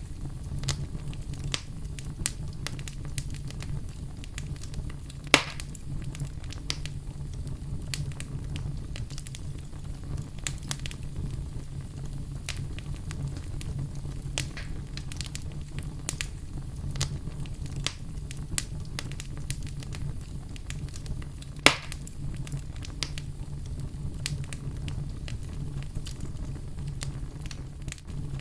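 Fireplace fire crackling, with a low steady rumble of flames under frequent small snaps and two louder pops, one about five seconds in and one about three-quarters of the way through.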